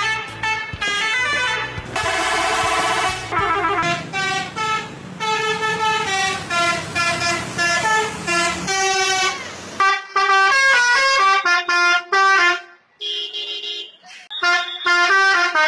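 Truck's telolet horn, a multi-note musical air horn, playing quick tunes of short tooting notes that jump up and down in pitch, with a fast warbling run about two seconds in and short breaks between phrases near the end.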